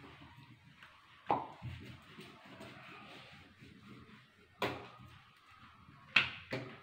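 Wooden rolling pin rolling out chapati dough on a stone countertop: a faint low rolling rumble, broken three times by sharp knocks of wood on the counter, a little over a second in, about two thirds of the way through, and near the end.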